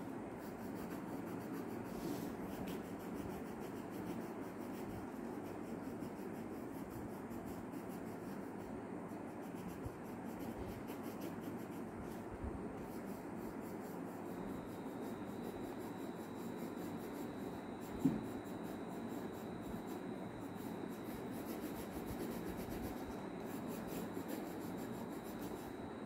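Coloured pencil rubbing steadily back and forth on paper held on a clipboard as a child shades in a picture, with one brief tap about two-thirds of the way through.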